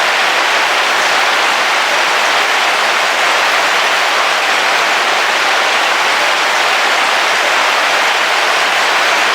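Heavy rain falling steadily on a camping car's roof, heard from inside the vehicle as a dense, even hiss with no thunder.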